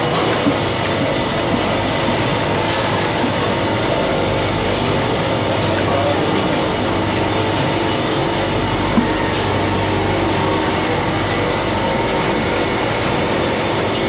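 Ice cream production machinery running steadily: a continuous mechanical hum and hiss with a low drone and a few steady tones.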